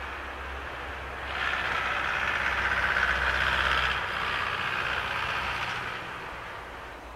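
Steam locomotive hauling a freight train away, a steady rush of exhaust and running noise that swells about a second in and dies away near the end.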